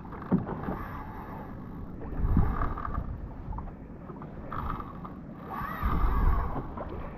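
Wind buffeting the microphone and sea water against a kayak hull, with low gusts about two seconds in and again near six seconds. Short bursts of mechanical whirring come in between, consistent with a spinning reel being wound while fighting a hooked fish.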